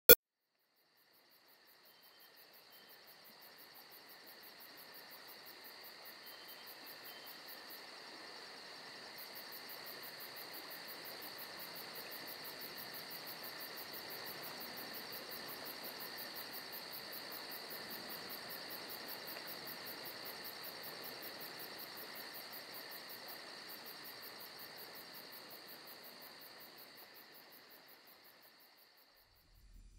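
A brief click at the very start, then a steady, high-pitched chirring insect chorus with a fast, even pulse. It fades in slowly over the first several seconds and fades out near the end.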